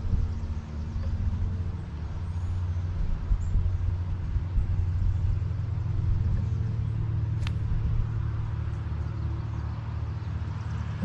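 Steady low mechanical hum, like a running engine or motor, holding an even pitch throughout. There is one brief sharp click about seven seconds in.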